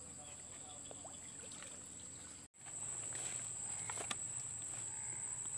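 Steady high insect trill over faint water sounds from hands working in a shallow ditch. The sound drops out briefly about halfway through, then the trill continues a little louder, with a light click about four seconds in.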